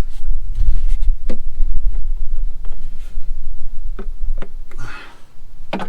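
Scattered light clicks and knocks of a plastic oil bottle and its cap being handled, over a steady low rumble that drops away about five seconds in.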